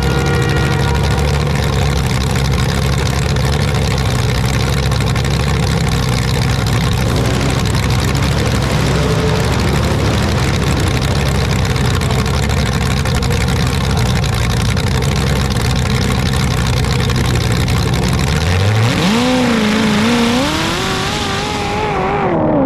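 Loud engine running hard at steady high revs. About 19 s in, a higher-pitched engine note rises and wavers up and down, then cuts off near the end.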